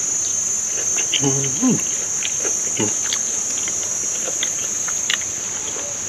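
Steady high-pitched drone of insects, with scattered small mouth clicks of chewing and a brief hummed vocal sound about a second in.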